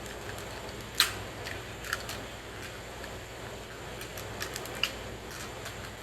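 Sharp plastic clicks and taps from a small screwdriver prying at the clips that hold a BMW master window switch in its plastic bezel. The loudest click comes about a second in, with a few lighter ones after it.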